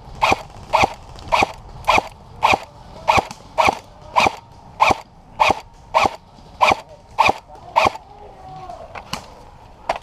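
Airsoft rifle firing single shots in a steady rhythm, a little under two a second, each a sharp crack with a short mechanical after-sound; the string stops about eight seconds in, with one or two shots after.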